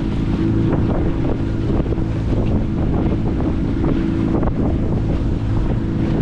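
Small skiff's outboard motor running steadily under way, freshly serviced with new spark plugs, with gusty wind buffeting the microphone.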